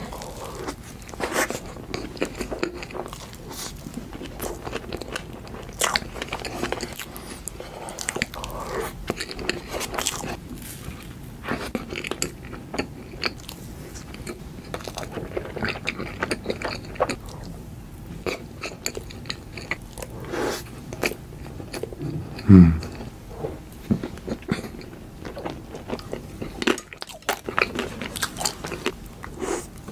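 Close-miked chewing and biting of soft cream cakes, with wet mouth clicks and smacks throughout. About two-thirds of the way through, a brief low sound falling in pitch is the loudest moment.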